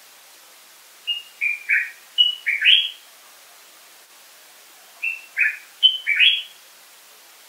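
Common bulbul singing two short, similar phrases of about six quick, clear notes each, the first about a second in and the second about four seconds later.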